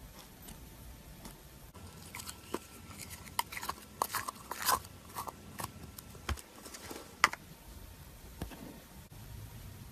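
Slime being squished and pulled by hand, giving a run of sharp, sticky crackles and pops, the loudest about seven seconds in.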